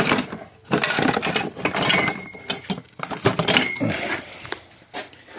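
Metallic clattering and clinking, many small knocks in quick irregular succession, with two brief high ringing tones in the middle.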